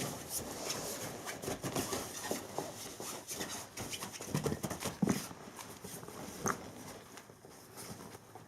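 Dalmatian puppy moving around in a play tunnel: irregular rustling and pattering of paws and claws against the tunnel, with a few louder knocks about halfway through, growing quieter near the end.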